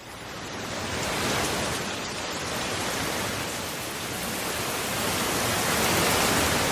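Rain sound effect: a steady, even hiss of heavy falling rain that fades in over about the first second.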